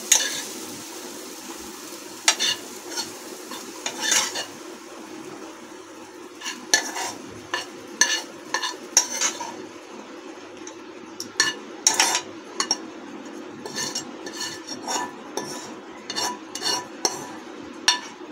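Steel spoon scraping and tapping against a non-stick frying pan as fried green peas are scooped out into a cup, in irregular clusters of clicks and scrapes over a steady low hum.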